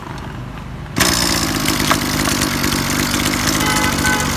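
Zenoah (Komatsu) BKZ3050 30cc two-stroke brush-cutter engine, just started, idling and then throttled up about a second in to a loud, steady high speed that it holds.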